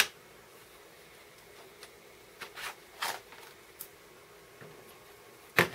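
Plastic handling sounds of a laptop battery pack being taken out: a sharp click at the start, a few faint plastic clicks as the pack comes free, and a louder knock near the end.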